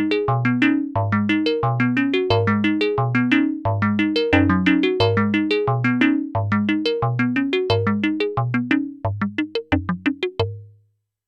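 Sequential Prophet-6 analog synthesizer playing a DX-style FM patch, with oscillator 2 modulating at audio rate through Poly Mod, completely dry. A fast sequenced pattern of bright, quickly decaying notes over a repeating bass note stops shortly before the end.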